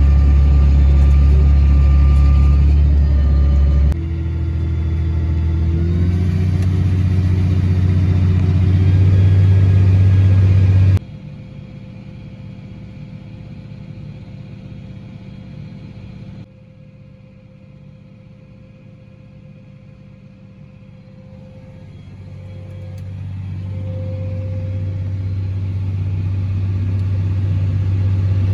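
Engine of large harvest machinery running, in several short clips: a loud steady rumble, then a higher-pitched stretch, then quieter stretches, and near the end the engine grows steadily louder.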